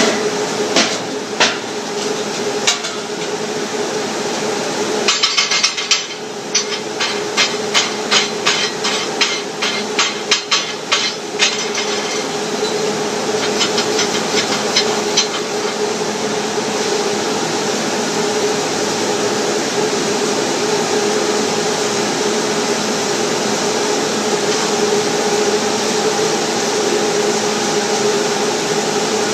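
Chipping hammer striking slag off a 6010 weld bead: a few taps, then a quick run of sharp metal strikes lasting about six seconds, then a few lighter clicks. A steady hum and hiss runs underneath.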